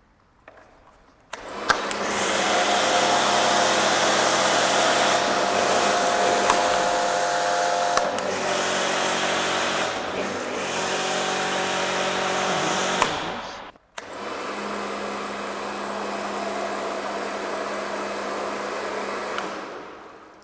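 Electric pressure washer running and spraying through a foam lance: a steady motor hum under a loud hiss of spray. It starts a little over a second in, cuts out briefly about two-thirds of the way through, starts again, and stops near the end.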